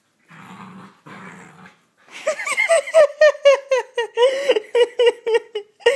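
Puppy play-growling in quick pulses, about five a second, starting about two seconds in, as it spins chasing its own tail. Two short, softer rough sounds come before it.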